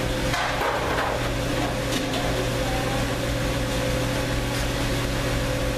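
Steady machine hum of commercial kitchen equipment: a constant drone with a few fixed tones over it, unchanging throughout.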